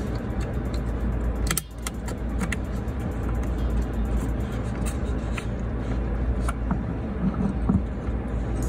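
Small plastic clicks and rattles from a car's rear-view mirror housing and its wiring connectors being handled and pushed onto the windshield mount, over a steady low hum.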